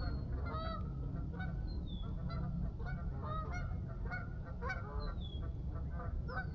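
Geese honking again and again, many short calls overlapping, with a few high falling whistled notes from other birds over a steady low rumble.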